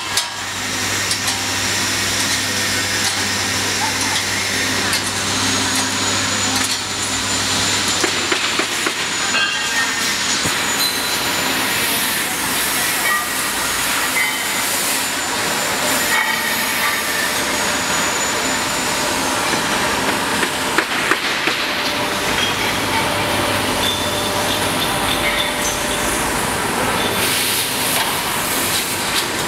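Bonnell spring assembly machine running: a steady hiss with scattered clicks and rattles of the metal spring coils being joined, over a low hum in the first several seconds.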